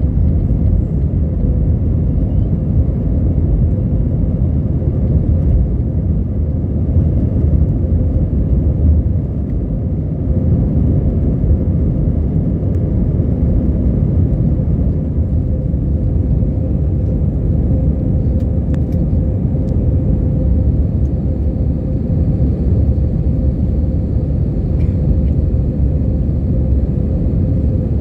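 Steady low rumble of an airliner's engines heard from inside the passenger cabin, with a steady hum running through it.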